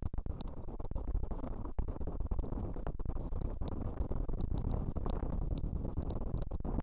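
Mountain bike riding fast down a loose gravel trail, heard from a helmet camera: a continuous low rumble of tyres over stones and wind on the microphone, with many quick sharp ticks and rattles from gravel strikes and the bike.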